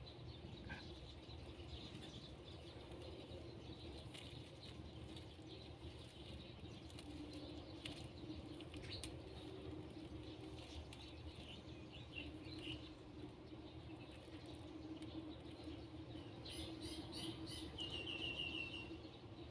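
Three-day-old kittens making faint, high squeaks while they nurse. A few come around the middle and a quick run of them near the end, over a steady low hum.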